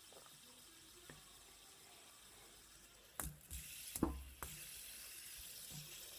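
Faint clicks and knocks over a low hiss, from fidget spinners being handled and flicked: a single click about a second in, then a cluster of sharper knocks between about three and four and a half seconds in.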